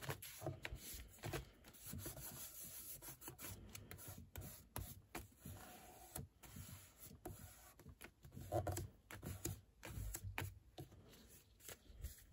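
Hands pressing and rubbing a sheet of cardstock flat against a wooden tabletop, with irregular paper rustles and small taps as the glued cover is positioned and smoothed down.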